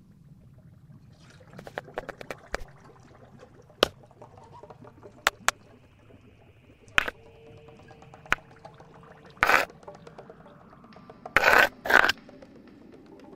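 Scattered sharp clicks and taps, then short bursts of scraping noise about two-thirds through, with the loudest scrapes near the end, over a faint low hum.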